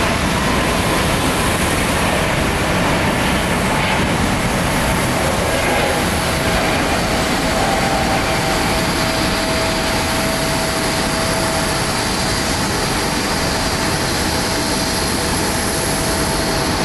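Airbus A321neo's Pratt & Whitney PW1100G geared turbofan engines running: a loud, steady rush, joined by a steady mid-pitched tone about six seconds in.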